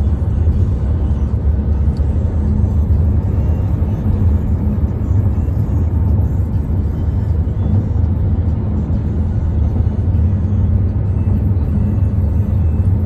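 Steady low road rumble of tyres and engine, heard from inside the cabin of a car driving at highway speed.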